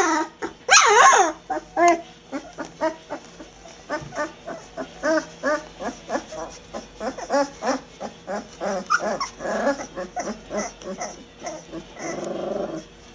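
Bouvier des Flandres puppies whining and yelping: a loud, wavering cry at the start, then many short squeaks and whimpers, several a second, and a rougher little growl near the end.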